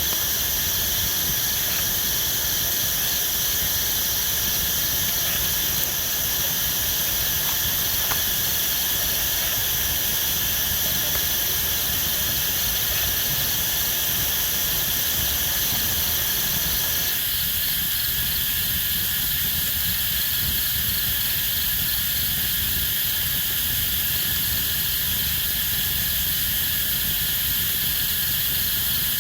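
Steady forest insect chorus of crickets or cicadas, a constant high-pitched chirring. One of the high voices in the chorus stops about two-thirds of the way through while the rest carries on.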